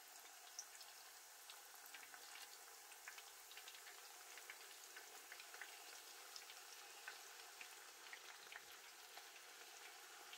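Plantain slices deep-frying in hot oil: a faint, steady sizzle with many small crackles and pops.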